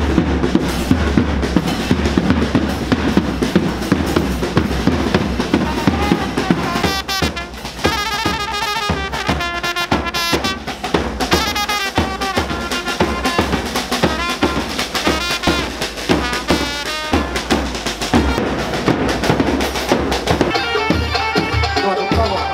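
Iraqi traditional band playing: a large bass drum beats steadily under a trumpet melody. The first several seconds are mostly drumming, and the trumpet tune comes through clearly after that.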